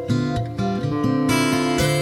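Background guitar music, a run of plucked notes and chords.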